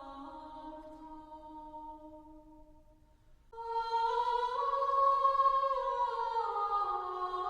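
Slow, chant-like background music of long held tones that shift pitch in small steps; one phrase fades out about three seconds in and a louder one begins just after.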